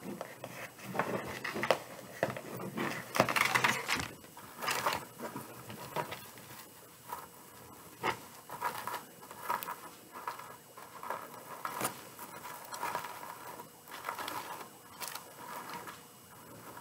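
Rustling and crinkling of burlap and metallic deco mesh being handled on a wreath, with irregular scrapes and a few sharp clicks.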